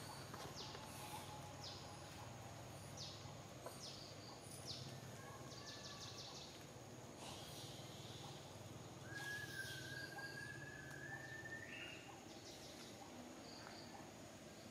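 Quiet forest ambience: a steady high hum and scattered short chirps, with one long thin whistled call about nine seconds in that rises at the end.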